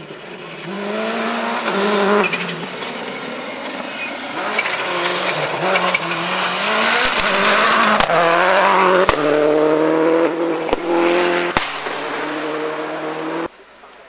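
A rally car driven hard on a special stage, its engine revving up and dropping repeatedly through gear changes as it approaches and passes, with several sharp cracks mixed in. The sound cuts off suddenly near the end.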